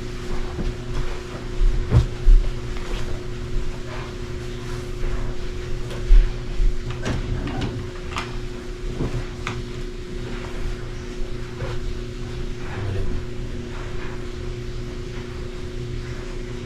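Clothes being handled and put away: rustling, with scattered knocks and bumps, louder thumps about 2 and 6 seconds in, over a steady low hum.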